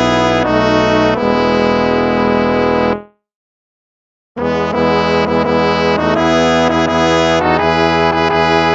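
Instrumental hymn music: a held closing chord fades out about three seconds in, followed by about a second of silence. The next hymn then begins at full level.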